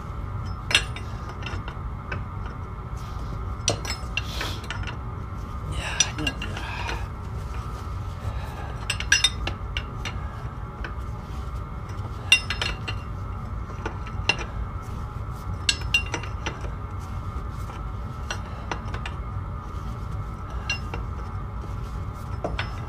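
Steel parts and hand tools clinking and knocking together in irregular sharp strikes, some ringing briefly, over a steady low hum.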